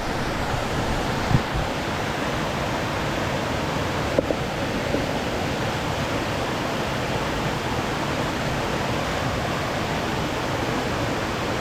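Big waterfall's falling water rushing steadily, an even wash of noise, with a couple of small knocks about a second and four seconds in.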